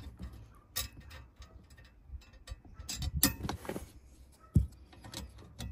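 Scattered clicks and knocks of a metal dog guard and its bracket being handled and lined up for bolting, with one low thump late on as the loudest sound.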